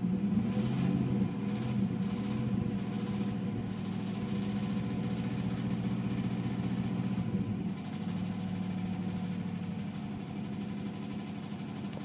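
A 1996 Chevrolet K1500's Vortec 5.0 V8, heard from inside the cab, running in park. It is held above idle, then drops back toward idle about seven and a half seconds in. It carries a knock that the owner takes for a rod knock, getting progressively worse, with metal shavings in the oil.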